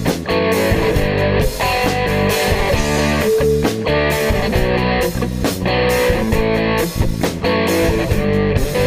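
Rock band demo recording in an instrumental passage: electric guitar and bass over drums, with sharp drum hits at a steady beat.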